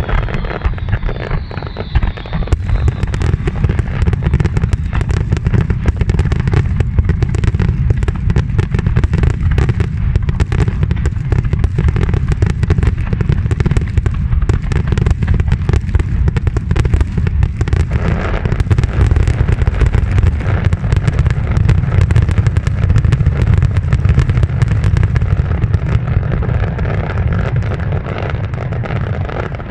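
Fireworks display going off in a dense, continuous barrage of bangs and crackles, many in quick succession over a deep rumble, easing slightly near the end.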